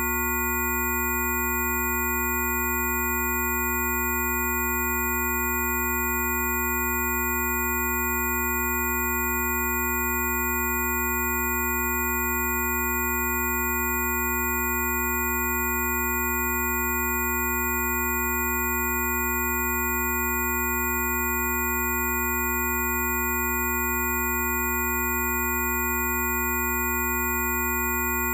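A chord of several steady, electronically generated pure sine tones sounding together and never changing: a Rife-frequency mix, from a low drone under 100 Hz up to high-pitched whistles above 10 kHz.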